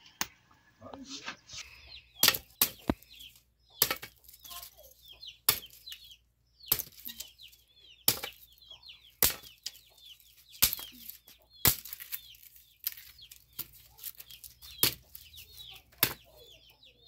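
Small sticks of firewood being chopped into kindling: about a dozen sharp chops, roughly one every second or so. Chickens and birds call between the strikes.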